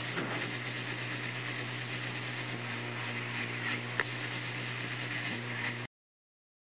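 Steady hiss and low hum of an old recording's soundtrack with no voice on it, broken by a single sharp click about four seconds in; the sound then cuts off abruptly to dead silence near the end.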